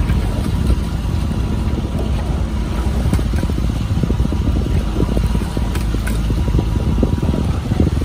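Motorboat engine running steadily, heard as a low rumble from the launch that is pacing the rowing shell, mixed with wind buffeting the microphone.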